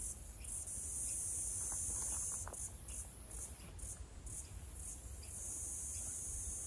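Insect chorus: a steady high-pitched buzzing that swells and eases, with a low rumble underneath.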